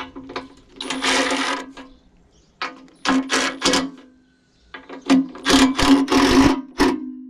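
Milwaukee Fuel cordless impact driver hammering in about five short bursts as it drives and tightens the anti-roll bar clamp bolts into the subframe, with the motor's whine running under each burst.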